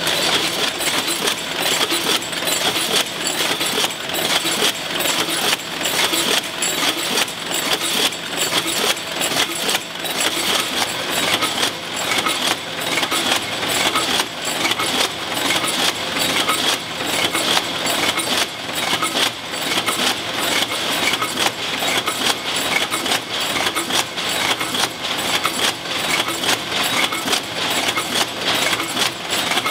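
Can-making machinery on a three-piece aerosol can body line running at production speed: a steady, dense metallic clatter of tinplate can bodies and machine mechanisms, with no letup.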